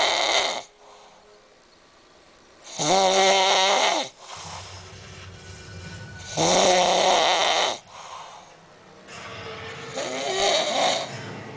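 A man snoring loudly in deep sleep. There are three full snores about three and a half seconds apart, plus the tail of one at the start, each a rattling, pitched snore with quieter breathing between.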